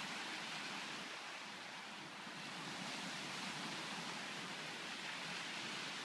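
Baltic Sea surf washing onto the beach, a steady hiss that eases a little and then builds again.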